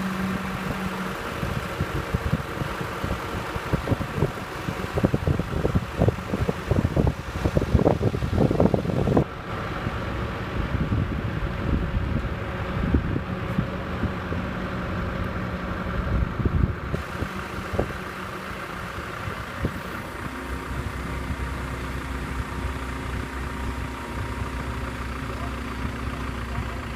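Diesel engine of an excavator idling steadily. A run of irregular thumps and rustles comes between about four and nine seconds in, and a deeper, steady engine hum sets in about two-thirds of the way through.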